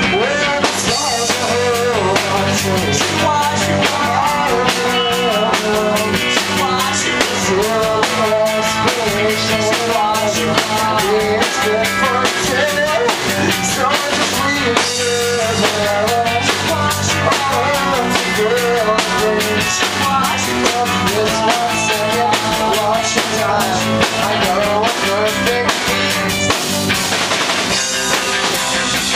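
A band playing rock music with a drum kit and guitar, and a melody line that may be voice or guitar.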